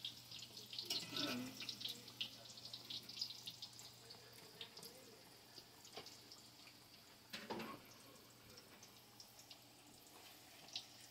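Pastelillos deep-frying in oil in a cast-iron skillet: a faint sizzle full of small crackles and pops, busiest in the first few seconds. A couple of sharp knocks come about six and seven and a half seconds in.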